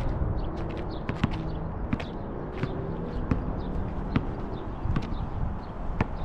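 A basketball bouncing on an asphalt court: a dozen or so sharp, irregularly spaced thuds of the ball being dribbled and caught, over a steady low rumble.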